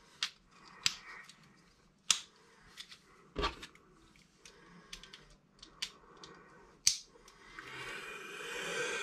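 Irregular sharp plastic clicks and ticks of AAA batteries being pressed into a Kyosho Mini-Z car's battery compartment and the parts snapped together. A rising hiss builds near the end.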